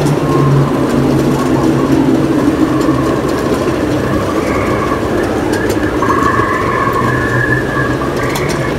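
Miniature ride-on railway train running along its track: a steady rumble, with a wavering higher tone in the second half.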